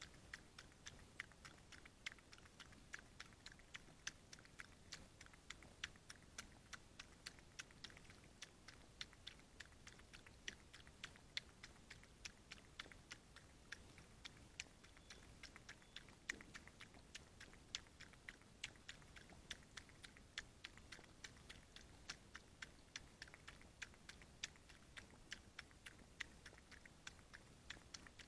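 A fox lapping water: faint, quick, irregular clicks, several a second, over a low hiss.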